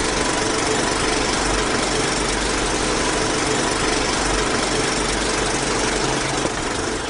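A motor running steadily with an even mechanical whir and a low hum, easing off slightly near the end.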